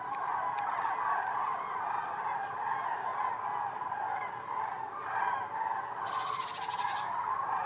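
A flock of common cranes calling in flight overhead: many trumpeting calls overlapping into a continuous chorus.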